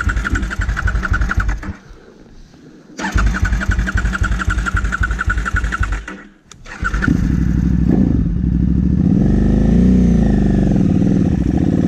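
KTM 990 Adventure's V-twin cranked on its electric starter in two spells with a pause between, then catching about seven seconds in and running, the revs rising and falling briefly. The rider says the starter motor needs sorting.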